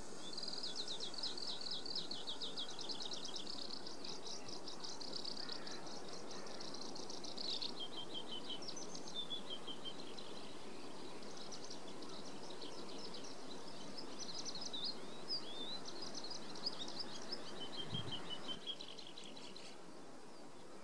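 A songbird singing a long, unbroken run of rapid, high trills and chirps over a steady background of distant outdoor noise. A soft low thump comes near the end, and the song stops shortly after.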